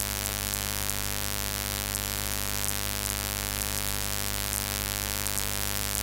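Steady electrical mains hum and buzz with a layer of hiss, holding an even level without change.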